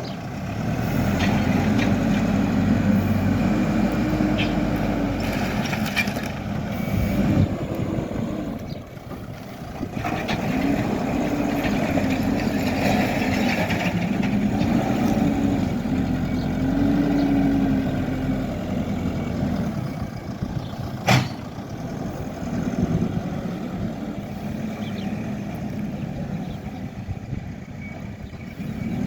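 Hidromek HMK 102S backhoe loader's diesel engine running under working load, its revs rising and falling again and again as the hydraulics are worked. A single sharp knock about two-thirds of the way through.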